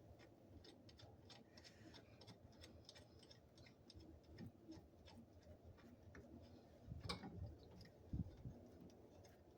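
Faint, irregular small clicks and taps of hand work on bolts and washers, with two slightly louder knocks about seven and eight seconds in; near silence otherwise.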